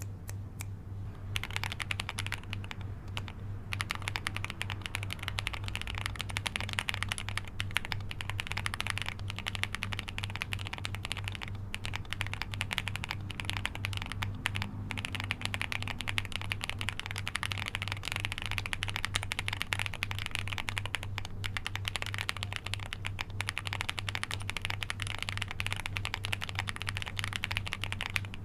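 Fast continuous typing on a Meletrix Zoom75 mechanical keyboard with Akko Yellow Pro V3 switches, a dense stream of key clacks that starts about a second in with a brief pause near three seconds. A steady low hum runs underneath.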